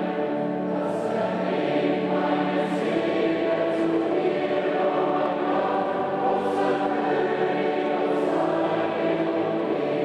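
A choir singing in a large church, holding long sustained chords with an even, steady level.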